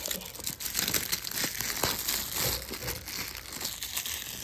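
Clear plastic shrink-wrap being peeled off a DVD case and crumpled in the hand: a continuous crackle of many small crinkles.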